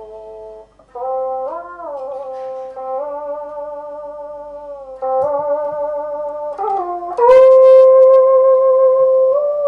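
Đàn bầu (Vietnamese monochord) playing a slow melody of long held notes, each sliding up or down in pitch as the instrument's flexible rod is bent. About seven seconds in, a note dips and rises in pitch, then settles into the loudest note of the passage.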